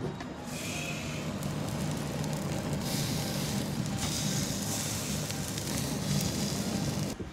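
Raw alligator pieces sizzling as they are laid on the hot wire mesh of an Iwatani Aburiya butane tabletop grill: a steady hiss that cuts off suddenly near the end.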